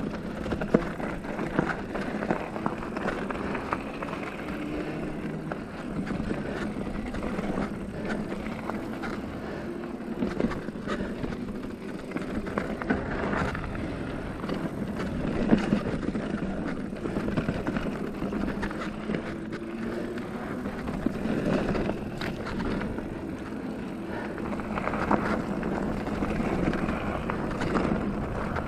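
Felt Decree 3 mountain bike rattling down a rocky dirt trail: tyres rolling over loose rock and dirt, with many sharp knocks and clatters from the bike as it hits rocks and bumps.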